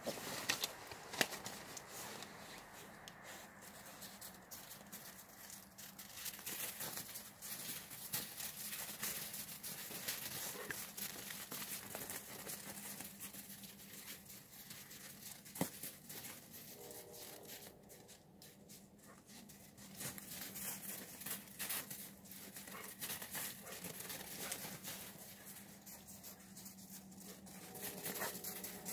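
Dogs' paws crunching and scuffing in snow as they run and dart about, an irregular crackle of many small steps.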